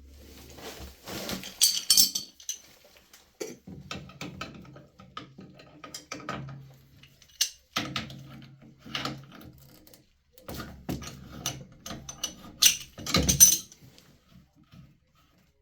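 Irregular metallic clinks, knocks and scrapes of hand tools working on a copper pipe fitting, with the loudest sharp strikes about two seconds in and near the end.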